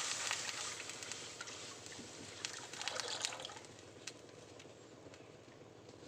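Water poured into a hot frying pan of dry-roasted whole spices: the hiss of steam fades away over the first few seconds, with a few short clicks and splashes about two and a half to three seconds in.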